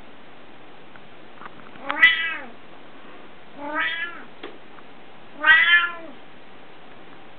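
Domestic cat meowing three times, each call about half a second long and rising then falling in pitch, with a few faint clicks in between.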